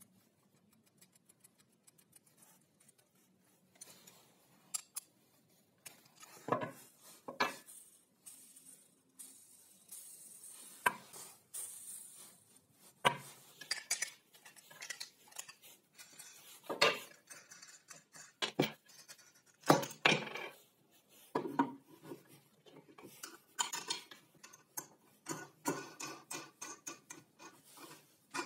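Small steel hardware clinking and clicking: bolts, washers and nuts handled and an open-end wrench tightening nuts, with scattered sharp knocks as the parts are set down. Quiet at first, the clinks begin a few seconds in and come irregularly after that.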